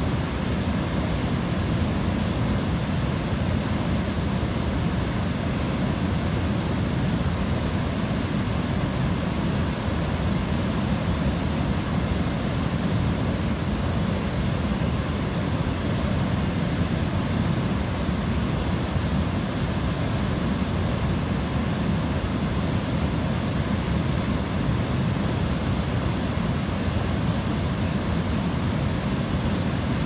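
River water rushing over a low stepped weir and through rapids, a steady, full rushing that does not let up.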